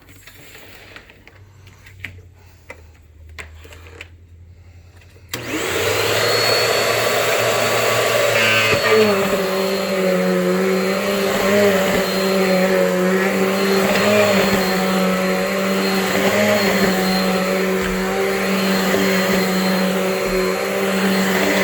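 Bissell CleanView 12 amp upright vacuum cleaner: a few light clicks of handling, then the motor switched on about five seconds in, spinning up to a steady high running sound. Its tone shifts a few seconds later, then it runs steadily with a gentle rise and fall every second or two as it is worked over carpet.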